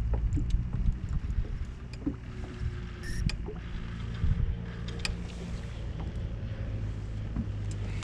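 A boat's motor humming steadily and low, with wind buffeting the microphone and scattered light knocks.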